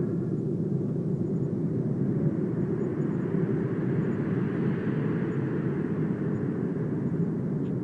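Steady low outdoor rumble, with a fainter hiss that swells and fades around the middle.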